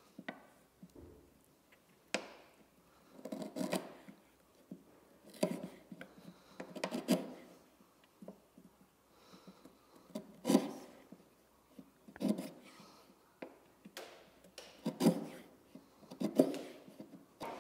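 A bench chisel paring a 45-degree bevel into the end of a thin kumiko strip held in a guide block. It makes a series of short shaving cuts, about eight of them, spaced irregularly a second or two apart.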